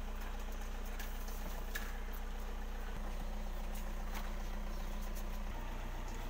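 Steady low mechanical hum, like a small engine idling, with a few faint clicks and knocks.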